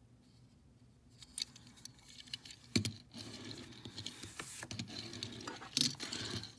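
A small die-cast toy car is set down on a tabletop with a sharp knock about three seconds in, then pushed and rolled along the surface, its wheels running with a rough, scratchy rolling noise and a few light clicks.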